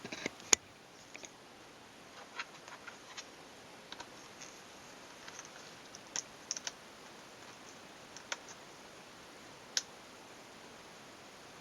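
Scattered light clicks and taps of small plastic and metal parts being handled on a laptop being taken apart, the loudest a sharp click about half a second in.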